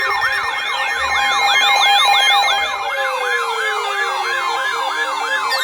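Several electronic sirens layered together, sweeping up and down about three times a second over steady alarm tones, with a lower tone gliding slowly downward through the second half.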